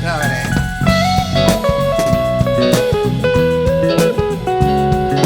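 Instrumental outro of a pop-rock song: guitar playing a melody line with bent notes over a drum kit and bass, stopping abruptly at the end.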